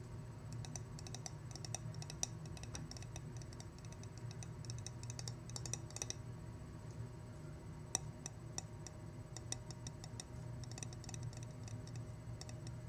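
Fingernails tapping and clicking lightly on a glass flower vase, in quick, irregular runs with short pauses.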